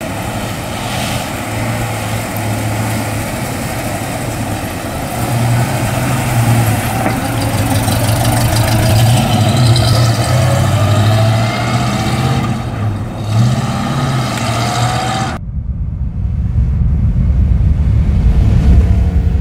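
A 1968 Pontiac Firebird's 326 cubic-inch V8 running as the car pulls out and drives off, its note rising in pitch a couple of times as it accelerates. About fifteen seconds in it cuts abruptly to a deep, rumbling logo sound effect.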